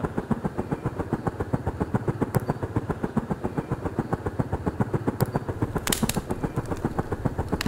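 Recorded electric fan noise played back as a tinnitus-masking sound: a steady whir with a fast, even pulsing from the spinning blades. A few sharp clicks come in near the end.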